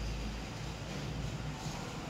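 Steady low rumble with a faint hiss: background ambience, with no distinct event.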